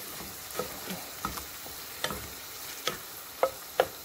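A wooden spatula stirring king prawns frying in masala in a metal pot: a faint steady sizzle under irregular clicks and scrapes of the spatula against the pot, the sharpest knocks near the end.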